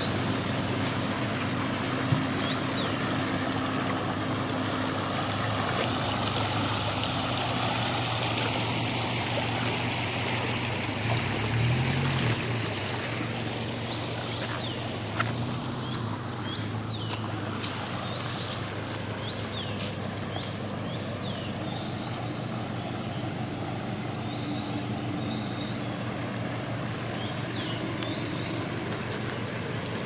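Shallow stream trickling over stones, with a vehicle engine idling steadily underneath. Short high chirps come and go in the second half.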